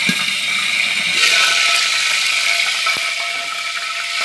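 Hot cooking oil sizzling and bubbling in a pan, spattering because water is still in it. The sizzle gets louder about a second in, and there is a single click near the end.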